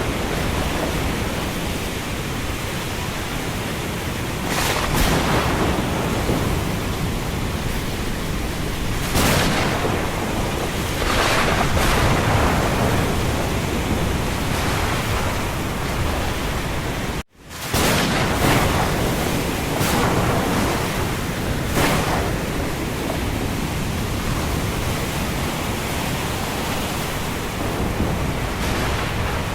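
Thunderstorm: a steady rush of heavy rain and wind with a deep low rumble, and several louder swells lasting a second or so each. About seventeen seconds in, the sound cuts out for an instant and then resumes.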